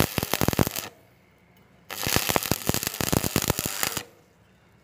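Stick welding arc crackling as the coated electrode burns against steel angle iron, in two bursts: a short one that stops about a second in, then after a pause another of about two seconds.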